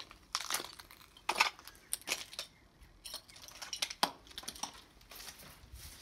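Footsteps crunching on broken glass and rubble, slow uneven steps with sharp crunches and clinks of debris underfoot.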